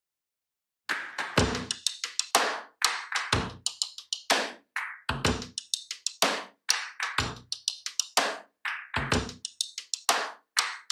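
Background music: a percussion beat with a deep drum hit about every two seconds and quicker taps in between, starting about a second in after a brief silence.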